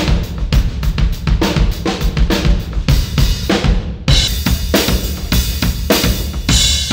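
Rock music driven by a loud drum kit, with kick, snare, hi-hat and cymbals hitting steadily. The top end fades out for about a second, then the full, bright sound cuts back in at about four seconds.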